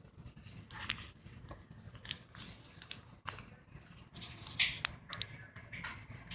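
Baby's faint mouth and breath noises: scattered short smacks, clicks and breathy puffs, a little louder and more frequent about four to five seconds in.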